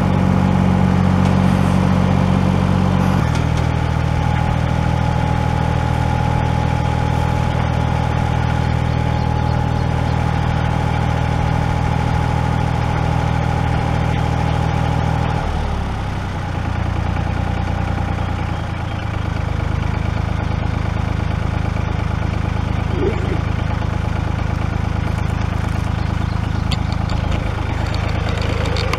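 1981 tractor's engine running steadily, its pitch stepping slightly lower about three seconds in and turning rougher for a few seconds around the middle before settling again.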